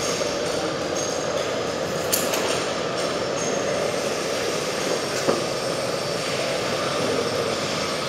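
Steady mechanical whirring noise, with a sharp click about two seconds in and a short knock about five seconds in.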